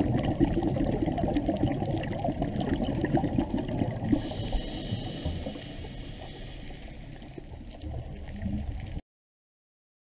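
Underwater ambience picked up by a diver's camera: muffled water noise with many small clicks and gurgles. It slowly fades, has a band of hiss from about four to seven seconds in, and cuts off suddenly about nine seconds in.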